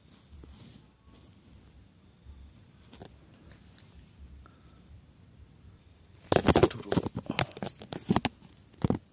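Loud crackling and rustling for about two seconds, starting some six seconds in, with one more short crackle near the end. Under it, faint steady cricket chirping.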